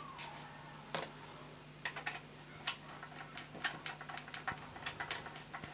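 Small screwdriver turning a 3mm screw into a 3D-printed model locomotive body: a string of light, irregular clicks and ticks, more frequent from about two seconds in.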